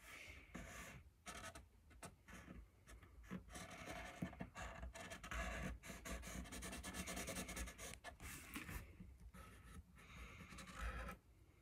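Faint scratching of a Sharpie marker's felt tip drawn over a hockey stick's shaft in short, broken strokes as it traces over the printed lettering.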